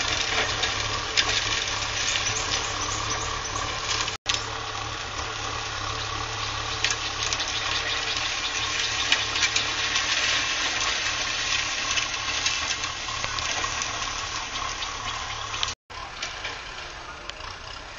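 Tractor pulling a disc harrow through dry, weedy soil: a continuous crackling, scraping noise from the discs cutting the dirt and stubble, over a low, steady engine drone. The sound cuts out briefly twice, about four seconds in and near the end.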